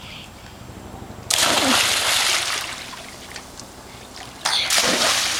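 Two splashes of children diving into a swimming pool, about three seconds apart, each a sudden loud splash that dies away over a second or so.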